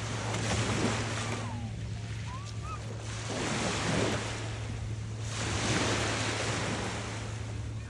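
Small waves breaking and washing up a sandy, pebbly shore, the surf swelling and easing off three times.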